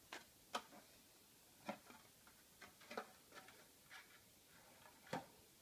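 Irregular light clicks and taps of a perfume bottle being taken out of its moulded plastic packaging insert, the sharpest about half a second in and near the end.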